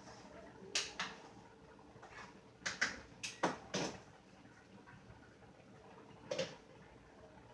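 Kitchen clatter at the stove: a handful of short, sharp clinks and knocks of a utensil against cookware, in small clusters, over a faint steady hum.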